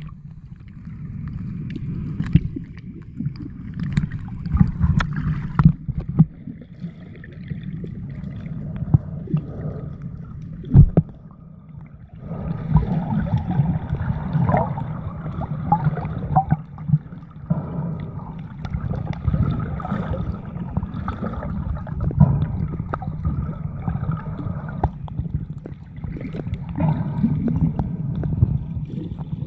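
Muffled underwater noise picked up by a submerged camera: a steady low rumble of moving water, with scattered clicks and knocks, one sharper knock about eleven seconds in.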